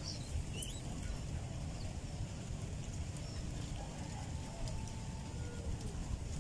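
Wind buffeting the microphone as a steady, uneven low rumble, with a few faint bird chirps near the start.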